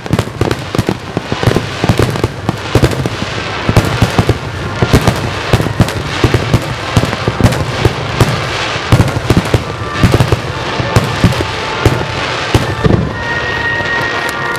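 Dense barrage of firework shells bursting, many sharp bangs and crackles a second, thinning out near the end as a few steady tones come in.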